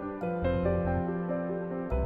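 Soft instrumental background music: a held low note under a slow melody of changing notes.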